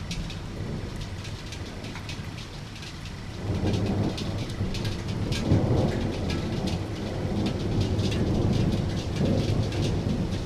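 Steady rain, with single drops striking close by. A long, low rumble of thunder builds about three and a half seconds in, is loudest a couple of seconds later, and rolls on to the end.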